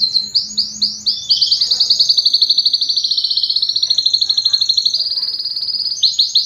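Domestic canary singing: a few slower sweeping notes, then a long rapid roll of about ten notes a second, breaking back into slower sweeping notes near the end.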